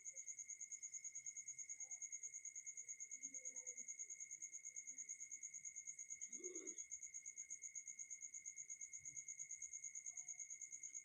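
Insect trilling faintly and steadily: a high-pitched, rapidly pulsing tone with a second, lower steady tone beneath it. A soft, brief handling sound comes about six and a half seconds in.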